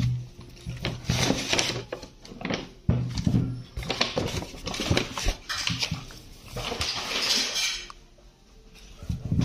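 Plastic produce packaging and plastic mesh vegetable bags crinkling and rustling in irregular bursts as they are handled and turned over close to the microphone.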